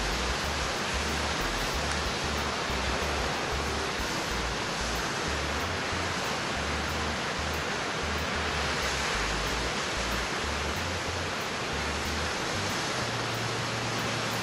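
Half Moon Brook waterfall pouring over a cliff ledge: a steady, even rush of falling water.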